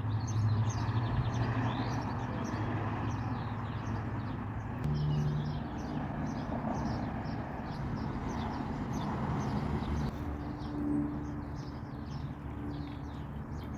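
Boat engine running with a steady low hum that shifts in pitch about five seconds in and again near ten seconds, while birds chirp over it.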